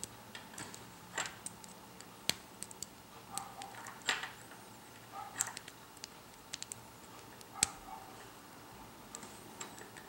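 Faint, irregular small metallic clicks and short scrapes of a lock pick and tension tool working the pins of a tubular Ace II lock core.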